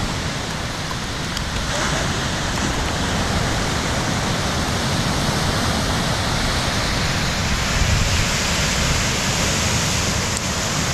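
Ocean surf breaking on a beach, a steady wash of noise.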